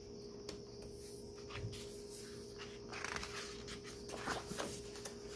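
Faint rustle and soft clicks of a glossy photo book page being handled and lifted to turn, over a quiet, steady low hum.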